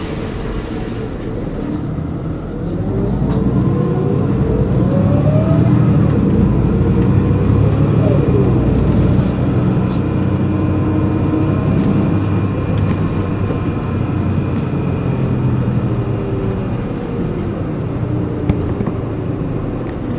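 Volvo D7E six-cylinder diesel of a Volvo 8700LE bus pulling away and accelerating from about two seconds in, its note rising and falling as the ZF Ecomat automatic gearbox works through the gears, with a steady high turbo whistle above it. A single sharp click near the end.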